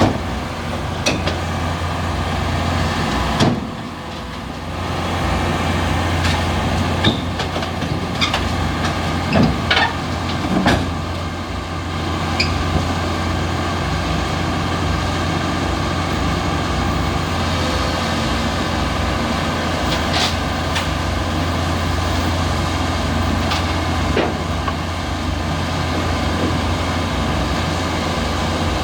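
Komatsu excavator's diesel engine running steadily under load, with several sharp knocks scattered through, most of them in the first third and two more later on.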